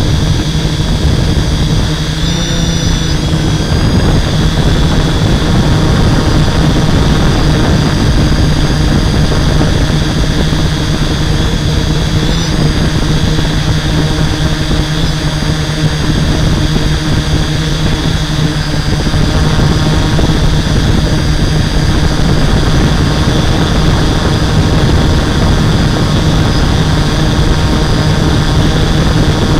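Hexacopter's six brushless motors and 11x5.5 propellers running steadily in flight, heard close up from a camera on the frame: a steady low hum under a high whine, which shifts in pitch briefly about two to three seconds in and again about twelve seconds in.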